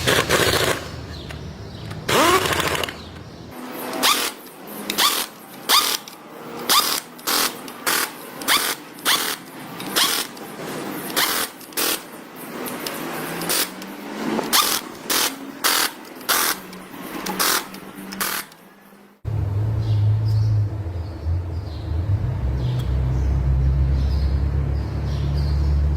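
Repeated short bursts from a power tool, about one to two a second, used while a forklift automatic transmission is being assembled. About two-thirds of the way through they stop suddenly and a steady low hum takes over.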